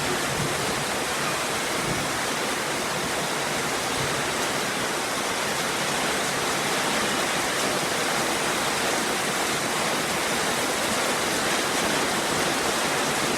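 Heavy rain falling, a steady, even hiss without pause.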